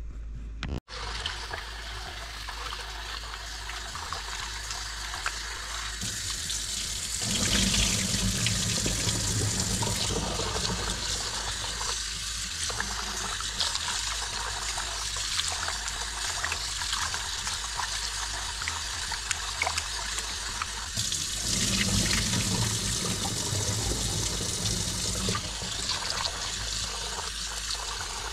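Kitchen tap running into a bowl of raw rice while a hand swishes and rubs the grains to rinse them, with water splashing and churning in the bowl. It grows louder twice for a few seconds.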